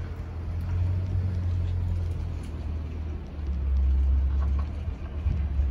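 Distant jet rumble from an Airbus A220-100's Pratt & Whitney PW1500G geared turbofans as the airliner climbs overhead: a low, continuous rumble that swells a couple of times.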